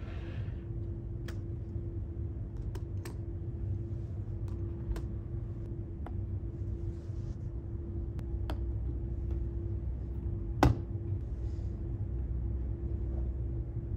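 Pens and a spiral notebook being set down and handled on a desk: a scattering of light clicks and taps, the loudest about ten and a half seconds in, over a steady low hum with a faint steady tone.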